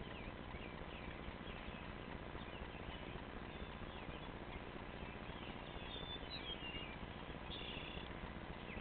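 Small birds chirping in short high calls, busier about six to eight seconds in, over a steady background hiss.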